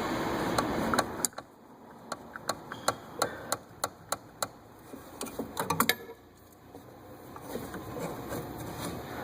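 A steady rushing noise that cuts off about a second in, then a string of sharp, irregular clicks and taps, thickest about six seconds in: hand work prying and tapping at a stubborn part while taking apart the fuel system.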